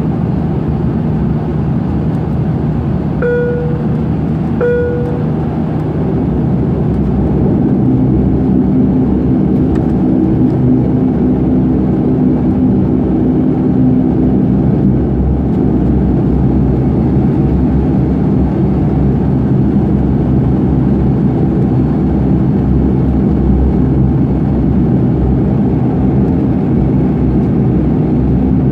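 Cabin noise of a Widerøe Dash 8 turboprop taxiing: a steady drone of the engines and propellers that grows a little louder about seven seconds in. Two short chime tones sound about a second and a half apart, about three seconds in.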